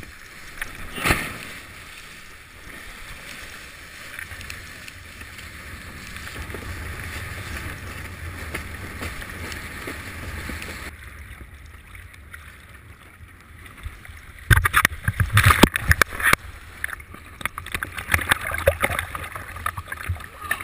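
Wind and water rushing past a GoPro Hero2 on a windsurfer planing over choppy water, with a sharp splash about a second in. From about fourteen seconds, loud irregular splashes and water slaps hit the camera.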